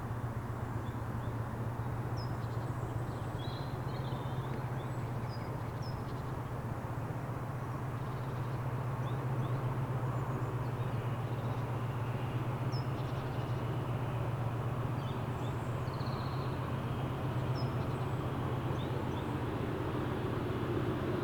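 A steady low diesel drone slowly grows louder as Class 56 locomotive 56078 approaches from a distance. Small birds chirp over it throughout.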